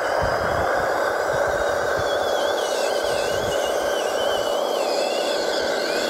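Electric motor and gear drive of a radio-controlled scale ZIL-130 4x4 truck, whirring steadily as it hauls a loaded dump trailer up a gravel slope. From about two seconds in, a thin high whine wavers up and down.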